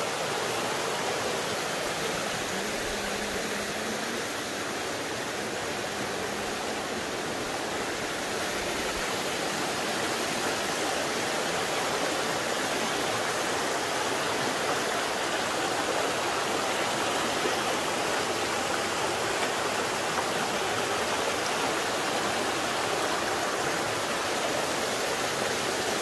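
Shallow, rocky forest stream rushing over and around boulders: a steady, unbroken rush of running water.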